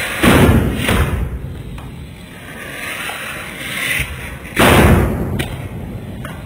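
Anar fountain fireworks hissing as they spray sparks, with sharp bangs of small bijli bomb firecrackers bursting: one about a third of a second in, another at about a second, and the loudest just before five seconds.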